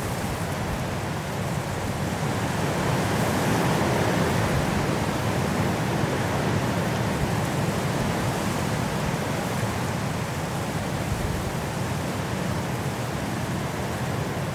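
Strong wind blowing through trees in a snowstorm, a steady rushing noise that swells into a stronger gust a few seconds in and then eases slightly.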